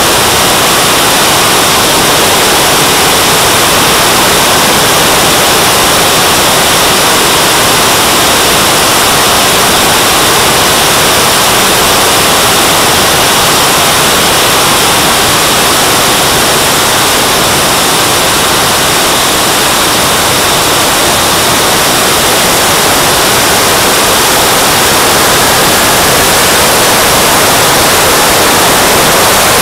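Loud, steady rushing noise heard from a camera riding on a JetCat turbine-powered model jet in flight: turbine exhaust and airflow over the airframe and microphone blended into one even roar with no clear whine.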